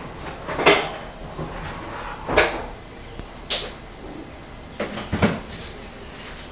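Kitchen clatter from things being handled at the counter: about half a dozen sharp knocks and clunks at uneven gaps, with faint rustling between them.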